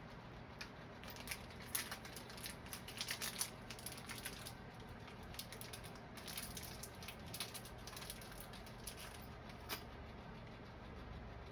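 Faint, scattered light clicks and rattles of tools and small hardware being handled, coming in clusters, with no drill running.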